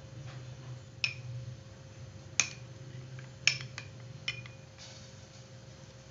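Metal spoon stirring custard powder and milk into a smooth paste in a small glass bowl, with about five sharp clinks against the glass, each ringing briefly.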